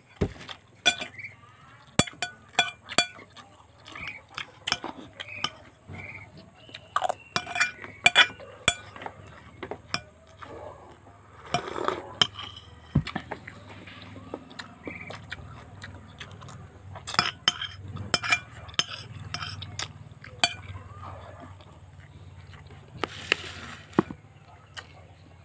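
Eating sounds: scattered sharp clinks against a ceramic plate and mug, with chewing and mouth noises, and a sip from a mug about twelve seconds in.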